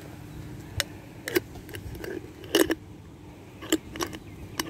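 Cats chewing dry kibble: an irregular scatter of short, sharp crunches.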